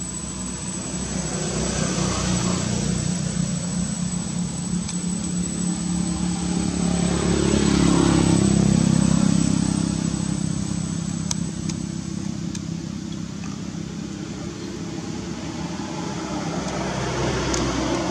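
Motor vehicle engine passing by, growing louder to a peak about halfway through and then fading, with another rise near the end. A thin, steady high tone runs beneath it until about two-thirds of the way through.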